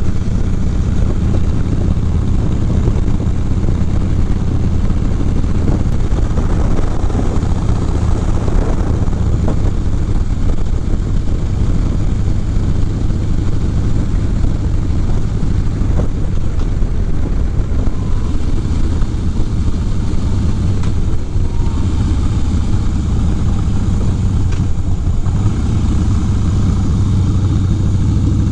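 Harley-Davidson V-twin motorcycle engine running steadily at cruising speed, with wind rushing over the microphone.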